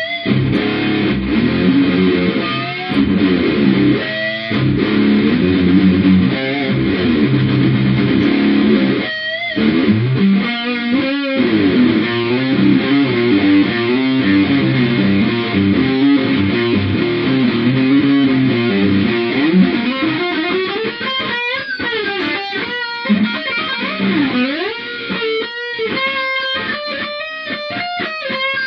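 Electric guitar playing metal: dense low riffs for about the first twenty seconds, then higher single-note lead lines with wide pitch bends.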